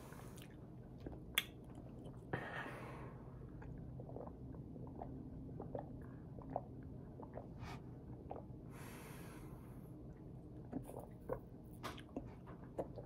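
Close-up mouth sounds of a person chewing and swallowing food, with many small wet clicks and two short breathy rushes of air, about two seconds in and about nine seconds in.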